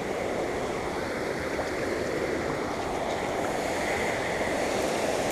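Flowing creek water, a steady rush with no breaks.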